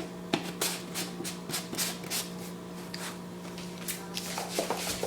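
Rustling and light clicking from hands handling small objects, a quick irregular series of strokes, over a steady low hum.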